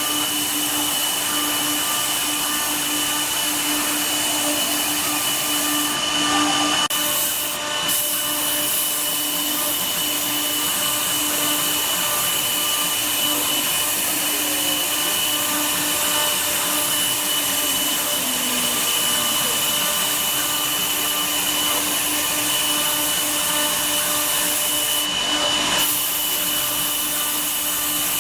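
CNC router spindle running steadily while cutting wood: a steady whine over a loud hiss, with a brief change in tone about seven seconds in.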